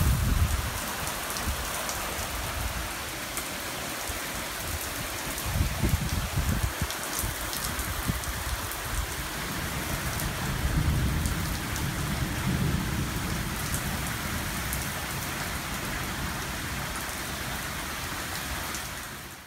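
Heavy rain pouring steadily during a squall-line thunderstorm, with low rumbles of thunder now and then.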